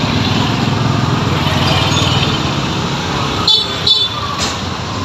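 A motor vehicle engine running steadily, easing off after about three seconds, then two short sharp sounds about half a second apart.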